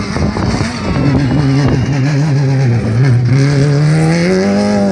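Off-road rally buggy's engine revving hard under load on a dirt climb, its note wavering at first, then rising steadily in pitch through the last two seconds.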